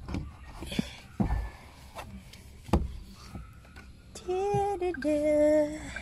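A few light knocks and thumps of handling, then a voice singing or humming two held notes, the second lower and louder, near the end.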